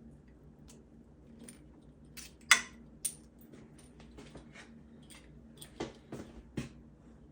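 Small hard parts being handled: a burnt solar connector and its cut wire clicking and tapping, the loudest click about two and a half seconds in and a few more knocks near the end. A faint steady hum underneath.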